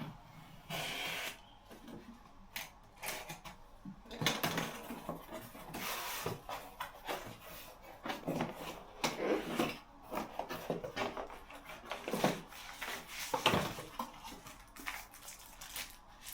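Irregular rubbing and rustling as a new computer keyboard is handled and unpacked, with a few short knocks.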